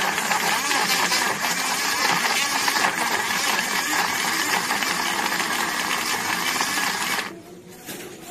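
Portable cordless personal blender running, its motor and blade whirring steadily through fruit juice, then switched off abruptly about seven seconds in.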